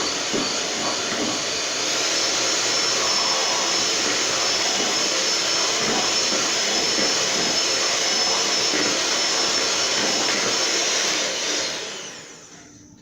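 Electric mixer beating cake batter, running steadily with a high whine, then switched off near the end and winding down with a falling pitch.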